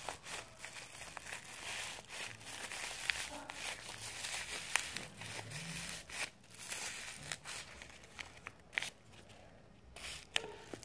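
Paper and plastic crinkling and rustling as hands squeeze and fold a paper squishy, with scattered sharp crackles; it goes quieter for a moment near the end.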